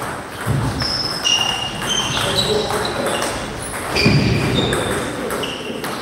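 Table tennis balls clicking in rapid rallies, many short sharp pings of the plastic ball off bats and tabletops, in a large echoing hall. Two dull thumps stand out, about half a second in and about four seconds in.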